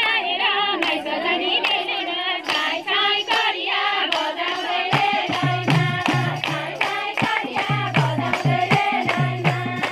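A group of women singing a Nepali Teej folk song and keeping time with steady hand claps. About five seconds in, a low, regular beat joins the clapping.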